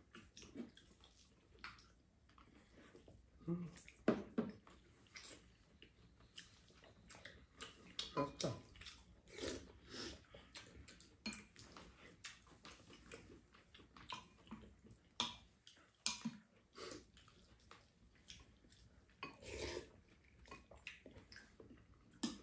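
Two people eating fried rice: spoons scraping and clicking against ceramic bowls, with quiet chewing, in short irregular sounds.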